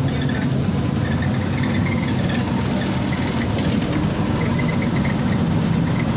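Steady low rumble inside the passenger cabin of a BKM 321 trolleybus.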